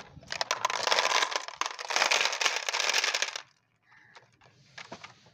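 Glass marbles tipping out of a plastic toy truck's bed into a plastic tray: a dense clatter of clicking glass that stops suddenly about three and a half seconds in, followed by a few scattered clicks.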